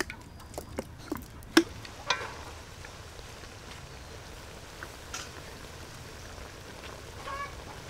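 Hoisin sauce sizzling in a hot wok, with a burst of sharp pops and ticks in the first two seconds, then settling into a steady hiss.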